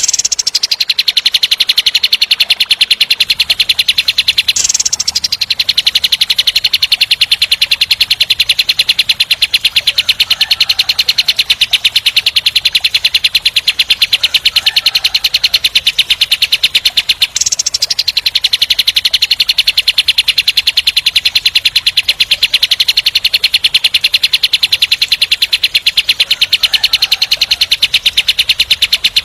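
Kapas tembak singing a long, rapid, rolling trill of high notes repeated in a tight, fast series, the harsh 'tembak' roll prized as training song for songbirds. The trill shifts briefly about five seconds in and again past halfway, then carries straight on.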